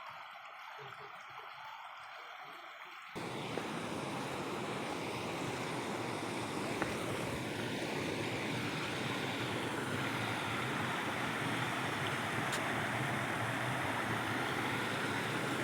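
Waterfall's rushing water, a steady noise. About three seconds in it cuts abruptly to a louder, fuller rush.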